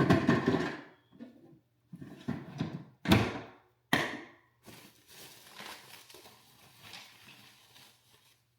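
Hard plastic parts of a new dehumidifier being handled: four knocks and thunks over the first four seconds, the sharpest about three seconds in. A few seconds of soft rustling follow.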